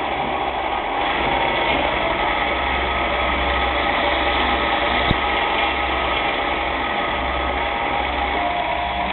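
CNC-converted Rexon mini lathe running steadily with its spindle at 800 rpm, during the cutting of a 1.25 mm pitch thread. A single sharp click about five seconds in.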